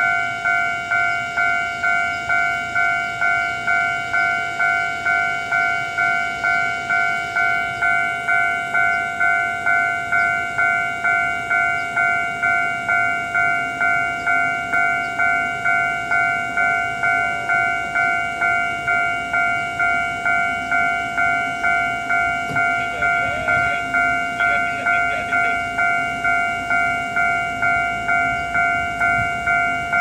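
Railway level-crossing warning bell ringing in an even, repeating ding, about one and a half strikes a second, signalling that a train is approaching and the crossing is closed. A low steady hum joins about halfway through.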